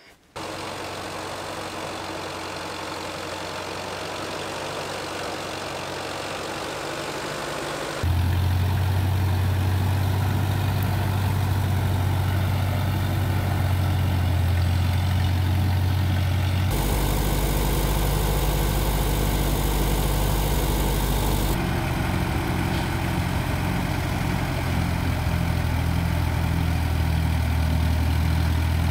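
Allis-Chalmers D17 tractor engine running steadily at idle, its sound changing abruptly in loudness and tone about eight, seventeen and twenty-two seconds in.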